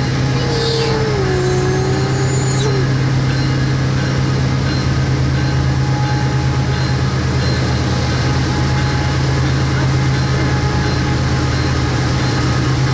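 Metrolink commuter train approaching slowly, its diesel locomotive running with a steady low drone. A fainter tone slides down in pitch in the first few seconds.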